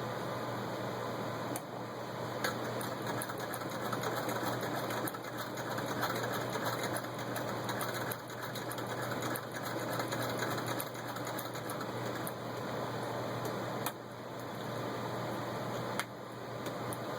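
Antique 1895 Singer VS2 treadle sewing machine, turned by hand, stitching through six layers of denim: a continuous run of needle and mechanism clatter, with a few sharp clicks where the running briefly falters.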